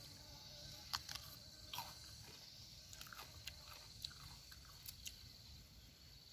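Faint crunching of raw mini snack peppers being bitten, chewed and pulled apart, in scattered crisp snaps and crackles.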